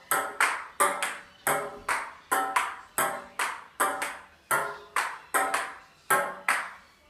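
A table tennis rally: the celluloid-type ball clicking back and forth off the paddles and a glass-topped table, about two to three hits a second, each with a short ringing tail.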